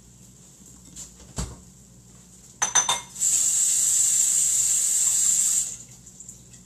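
Kitchen tap running into a sink for about two and a half seconds, then turned off, right after a short clatter of dishes; a single dull knock comes about a second and a half in.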